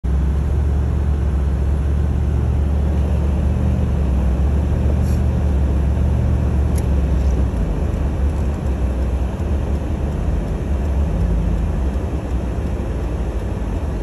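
Steady low rumble of a car driving, heard from inside the cabin: engine and tyres running on a snow-covered road.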